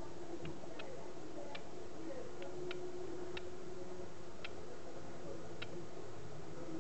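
Mourning gecko chirping: about eight short, sharp clicks at irregular intervals, over a faint steady hum.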